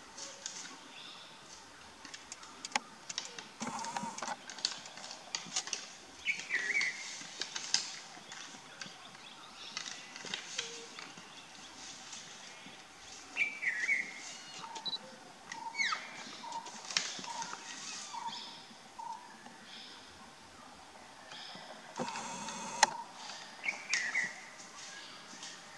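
Sambar stags sparring, their antlers clacking and scraping in irregular knocks, the sharpest one near the end. Birds call now and then with short falling chirps.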